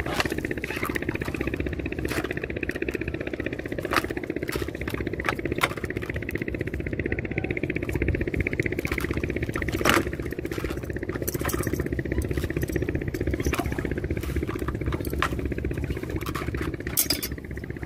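Small boat engine running steadily, with scattered sharp clicks and knocks over it.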